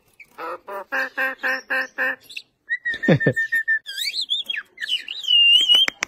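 Crested mynas calling: a quick run of about seven evenly spaced harsh call notes, then a held whistle cut across by a sharp downward-sliding note, then warbling whistled notes.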